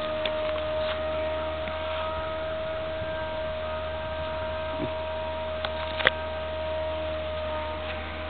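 A steady hum with a constant high tone over it, broken by a few faint clicks and one sharper click about six seconds in.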